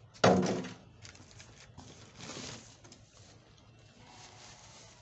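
Unpacking noises: one loud thump about a quarter second in, then softer rustling and crinkling of bubble wrap being lifted out of a cardboard box.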